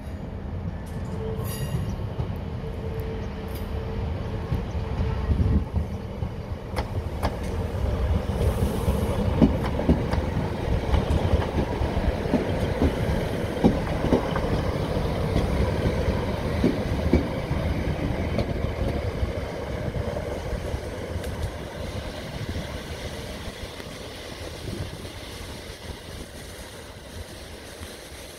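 Two-car Class 156 diesel multiple unit passing slowly, its underfloor diesel engines rumbling and its wheels clicking over rail joints. The sound builds as it approaches, is loudest about halfway through with a run of clicks, then fades as it moves away.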